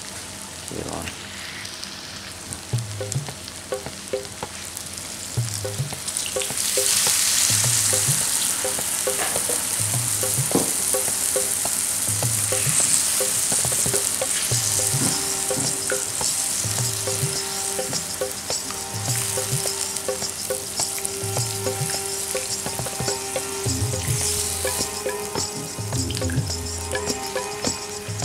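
Chicken pieces frying and sizzling in thick masala in a black pan, stirred and scraped with a spatula. About six seconds in, the sizzle gets louder, as water is added to the hot pan to start the gravy.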